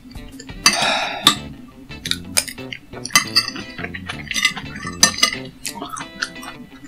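Cutlery clinking against dishes in a series of sharp clinks over background music, the sound of someone eating a meal.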